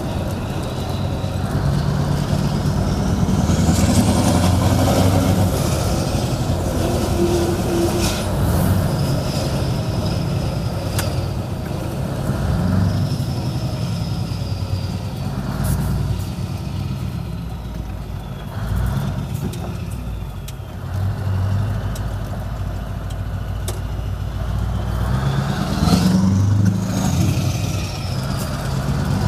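Scania 164L 580 V8 diesel with an open exhaust, driving through town under load: a deep engine note that climbs and drops again and again as it pulls through the gears. A high whistle rises and falls with the revs about four seconds in and again near the end.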